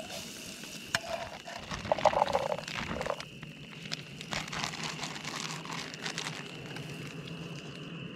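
Cooking over a campfire: irregular clicks, crackles and clatter of the pan and utensils over the coals, busiest about two to three seconds in. A steady high-pitched background note runs underneath.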